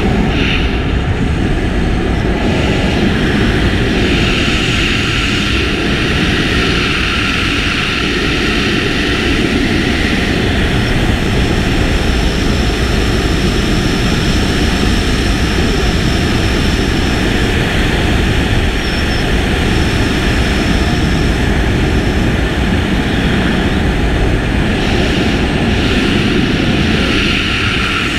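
Steady roar of rushing air over a helmet camera's microphone in skydiving freefall.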